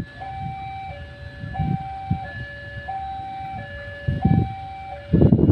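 Railway level-crossing warning alarm sounding: an electronic two-tone signal alternating high and low about every 0.7 seconds, warning that a train is coming. A louder rumbling noise joins near the end.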